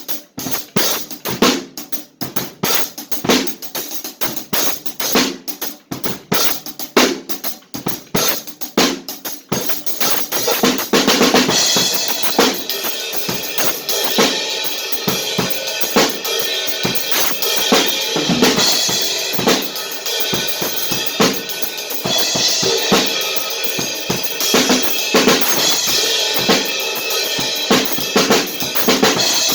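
Drum kit being played: separate drum hits at first, then about eleven seconds in a steady cymbal wash comes in and rings on over the beat.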